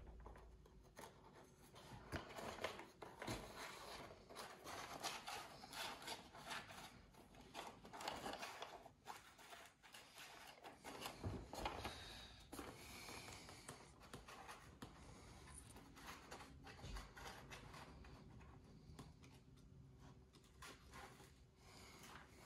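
Faint handling noise: light rubbing, scraping and small knocks of a foam RC jet airframe being handled while a wing joiner tube is worked through the fuselage.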